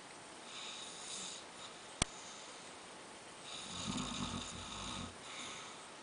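A man snoring in his sleep: a quieter breath first, then one louder, rattling snore starting about three and a half seconds in and lasting about a second and a half, followed by a softer breath. A single sharp click about two seconds in.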